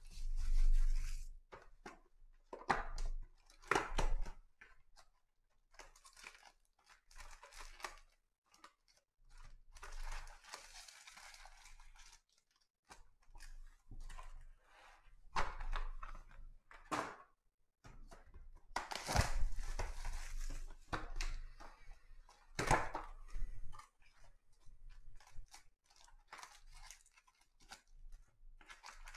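Trading-card packs being torn open by hand and their wrappers crumpled, in a run of short, irregular tearing and crinkling sounds.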